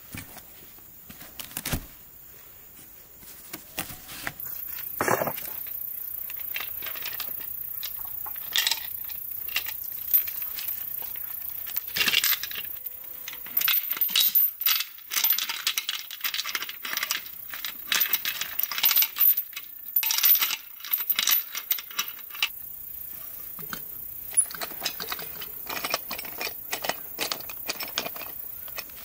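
Metal utensils and dishes clinking: many light, sharp clinks in quick, irregular clusters, growing busier a few seconds in.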